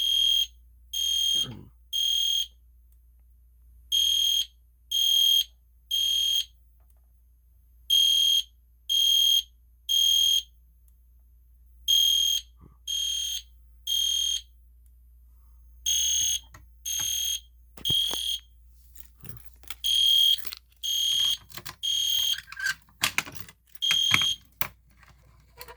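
EST Genesis fire alarm horn sounding the temporal-3 (code 3) evacuation pattern: three high-pitched half-second beeps, then a pause of about a second and a half, over and over. This is the alarm signal set off by a manual pull station.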